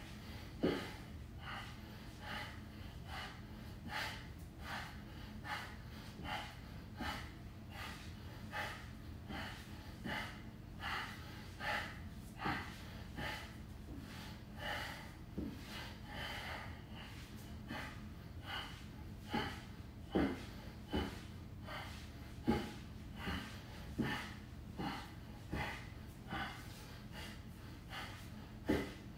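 A man breathing hard in short, sharp exhalations as he twists through bodyweight Russian twists. The breaths come in a quick, steady rhythm, a little more than one a second, matching the twists.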